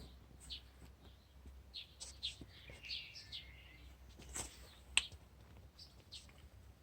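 Faint, scattered bird chirps with a few small sharp clicks, the loudest click about five seconds in.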